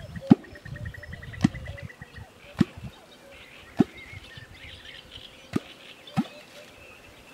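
A kwok, the hand-held catfish-calling tool, is plunged into the water surface again and again. It gives six sharp, low, hollow pops, roughly one a second with a shorter gap near the end, made to draw catfish.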